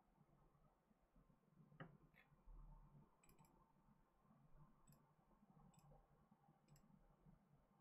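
Near silence with a handful of faint, short clicks spread across it, about five in all.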